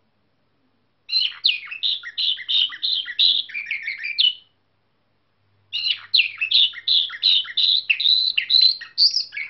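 Young canary trained in the nightingale-type (bülbül ötümlü) song, singing two runs of rapid, varied notes a few seconds each, with a short pause between them.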